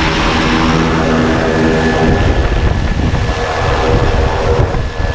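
Pilatus Porter jump plane's propeller engine running steadily at ground idle, a droning hum. About two seconds in, it turns into a heavier rumble with wind buffeting the microphone, heard from inside the cabin by the open door.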